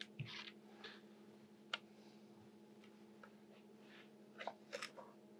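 Faint, scattered taps and short scrapes of a filleting knife on a plastic chopping board while fish fillets are trimmed, over a steady low hum.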